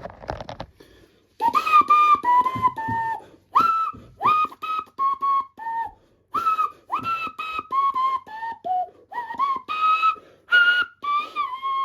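A person whistling a tune: a string of short notes, many sliding up into pitch, with a few quick knocks right at the start.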